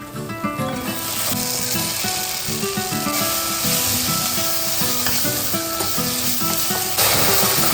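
Food sizzling as it fries in hot oil in a pan. The sizzle swells about a second in and grows louder again near the end.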